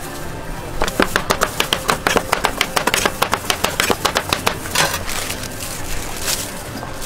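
Knife chopping a green fruit on a cutting board: a fast, even run of sharp taps, about six a second, starting about a second in and thinning out to a few scattered taps near the end.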